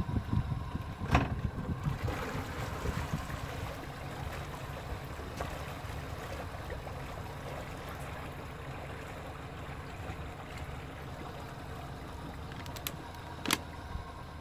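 Steady low rumble and wash of a small boat on the river, with wind buffeting the microphone in the first couple of seconds. Two sharp knocks, about a second in and near the end.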